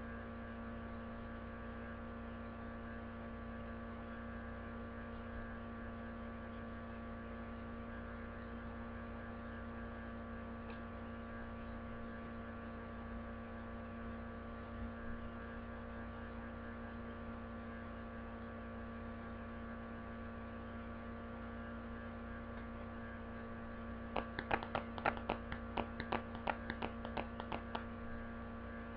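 Steady electrical mains hum with many overtones. Near the end, a quick run of about a dozen light clicks and taps over three or four seconds.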